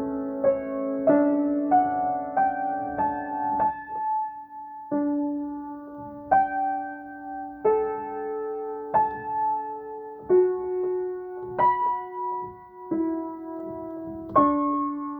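Acoustic piano playing a slow improvisation, one note or chord about every second, each left to ring, with a brief pause about four seconds in.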